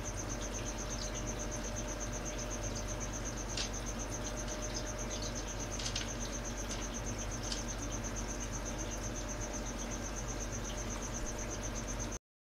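A cricket chirping in a steady, rapid, even high-pitched pulse over a low steady hum, with a few faint clicks; the sound cuts off abruptly shortly before the end.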